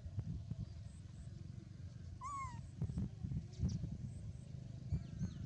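A baby rhesus macaque giving a few short, high squeaky calls, one falling in pitch about two seconds in and several more near the end, over a constant low rumbling and thumping noise.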